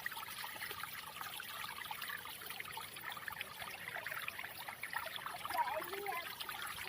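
Waterfall water splashing and trickling in a steady, even rush.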